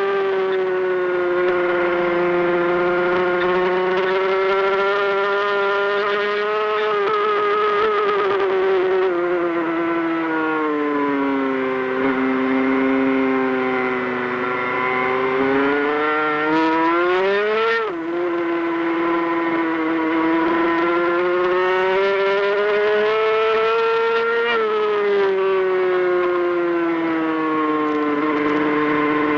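On-board sound of a Honda NSR500 Grand Prix motorcycle's two-stroke V4 engine at racing speed. Its note rises and falls with the throttle, sinking lowest through a slow corner near the middle, then climbing steeply and dropping sharply about 18 seconds in at a gear change.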